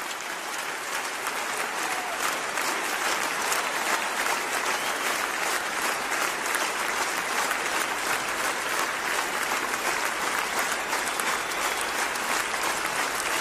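Applause from a group of people: many overlapping claps, building over the first couple of seconds and then holding steady.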